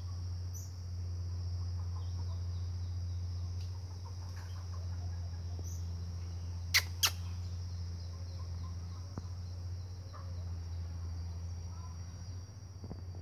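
Common marmosets giving two short, sharp, high calls about a third of a second apart, seven seconds in, with a few faint chirps. A steady high buzz and a low hum run underneath.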